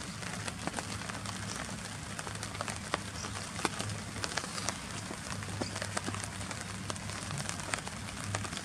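Rain falling on a tent, heard from inside: a steady hiss with individual drops ticking irregularly on the fabric.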